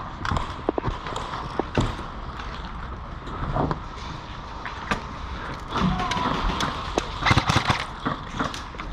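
Footsteps and rattling gear of an airsoft player on the move, with irregular knocks and clicks, and a quick run of sharp clicks about seven seconds in.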